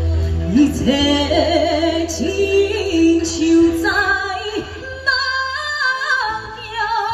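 A woman singing a Taiwanese Hokkien song into a handheld microphone over an amplified karaoke backing track, holding notes with vibrato. The backing track's bass drops out about six seconds in.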